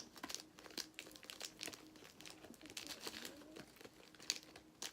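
Plastic packet of uncooked instant ramen snack crinkling and rustling in irregular bursts as it is handled.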